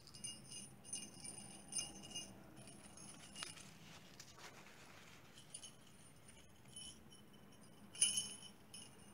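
Small metal jingle bells on a twine string jingling and clinking as they are handled, in two spells with a short pause between, loudest near the end.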